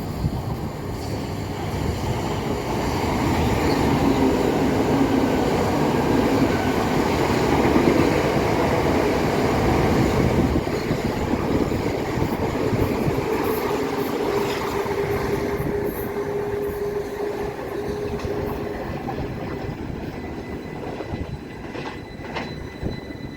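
Electric multiple-unit passenger train running through the station: a loud rumble of wheels on rail that builds over the first few seconds and then fades away. A steady tone is held for several seconds in the middle.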